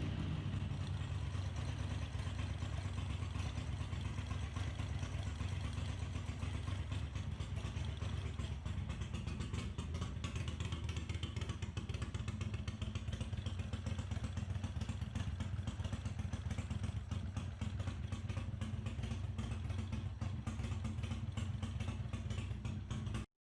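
Bevel-drive Ducati's air-cooled 90-degree V-twin running steadily at low revs after its oil and filter change, with mechanical clatter over the exhaust beat. The sound cuts off suddenly near the end.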